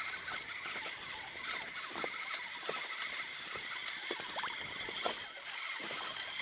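Small choppy waves lapping against the side of an inflatable boat: a steady hiss with irregular soft slaps of water on the hull.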